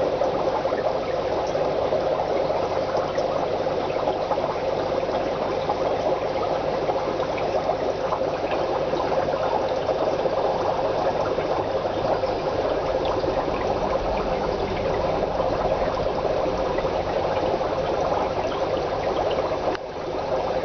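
Steady bubbling, splashing water noise from the aquarium's running water circulation, dipping briefly near the end.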